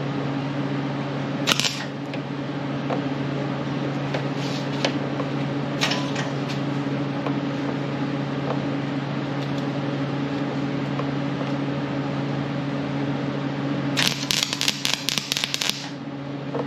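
A wire-feed arc welder hums steadily as she tries to tack a fatigued combine shoe, with brief arc strikes crackling a couple of times. Near the end comes a burst of rapid crackling as the arc catches and the tack goes on.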